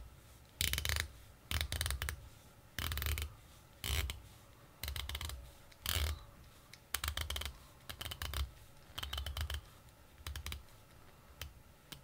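Zelos Swordfish V2's 120-click unidirectional dive-watch bezel turned in short bursts, about once a second, each burst a quick run of fine ratcheting clicks.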